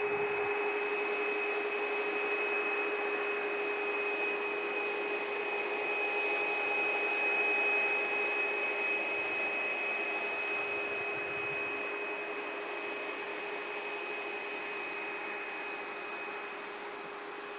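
Boeing 737 MAX 8's CFM LEAP-1B turbofan engines at taxi thrust: a steady rushing hiss with a high whine and a lower hum. It swells slightly about halfway through, then slowly fades.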